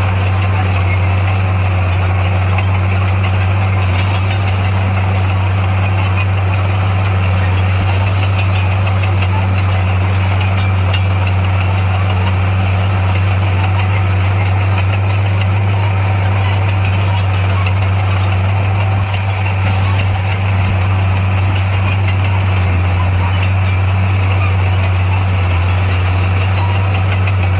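Heavy construction machine's diesel engine running steadily, a loud, even low hum with a fainter higher drone above it, dipping briefly about two-thirds of the way through.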